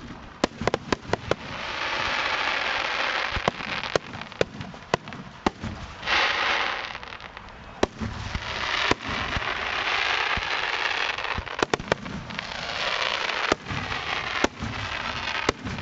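Aerial fireworks display: many sharp bangs from bursting shells in quick, irregular succession, with several stretches of dense hissing crackle lasting a second or more.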